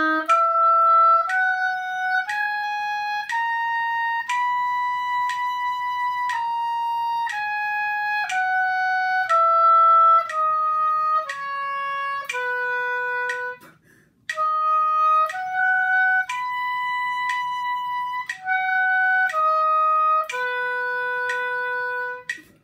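Oboe playing the concert B major scale up and down and then the arpeggio, at about one note a second, with the Bs held twice as long. The low B starts and ends the scale about 13 s in, there is a short breath, and then the arpeggio climbs to the high B and comes back down to the low B.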